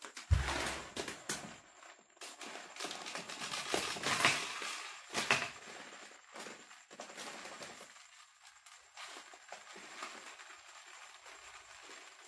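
Plastic bag of aquarium soil crinkling and rustling as it is handled, with a thump just after the start; the rustling dies down after about six seconds.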